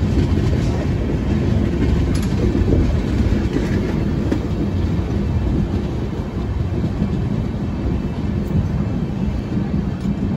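Passenger train running at speed, heard from inside the coach: a steady low rumble with a few faint clicks.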